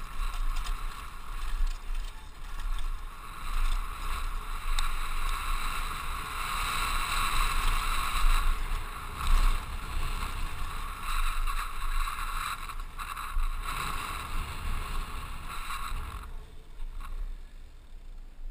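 Mountain bike rolling fast over a dirt trail: steady tyre noise with scattered rattles of the bike, and wind buffeting the helmet camera's microphone. It gets quieter about sixteen seconds in.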